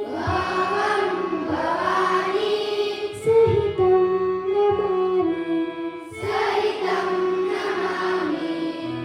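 Children singing together over a steady, held instrumental drone, in phrases that come and go.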